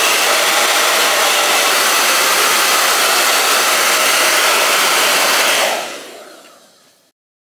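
Handheld hair dryer running, a steady loud rush of blown air that fades away about six seconds in.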